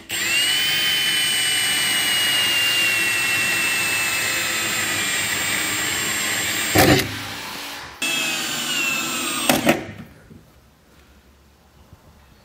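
Cordless drill boring a pilot hole into the truck bed floor: a steady motor whine whose pitch sags slowly as the bit cuts, with a knock about seven seconds in. The whine dips, runs again briefly and stops about ten seconds in.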